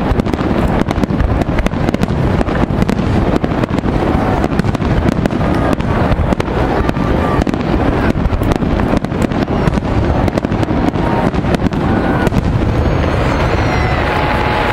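Aerial firework shells bursting in rapid succession: a dense stream of crackling bangs over a continuous low rumble.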